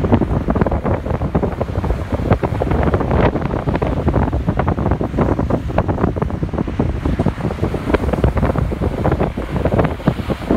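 Wind buffeting the microphone in uneven gusts, over the rush of breaking ocean surf.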